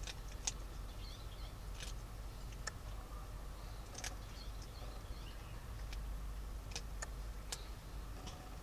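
Small kittens moving about on a blanket by a cardboard box: scattered faint clicks and scratches, with a few faint high squeaks over a low steady hum.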